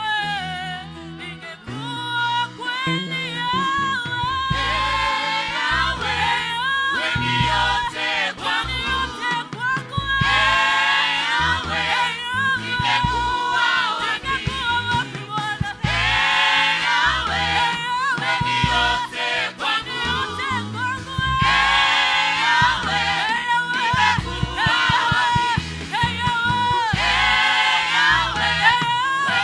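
Gospel singing by a worship choir with instrumental backing and a steady beat, the voices swelling into fuller passages every five to six seconds.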